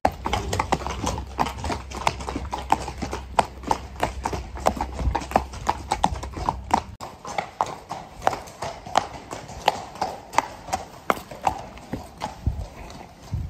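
Horses' hooves clip-clopping on brick paving as they are led at a walk, a steady run of sharp hoof strikes several times a second.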